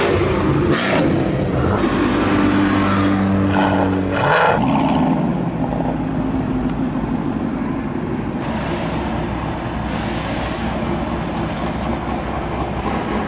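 Cars driving past one after another: a Ford Mustang, a Dodge Charger and another Mustang. The first holds a steady engine note for the first few seconds, then gives way to a more even engine rumble and road noise.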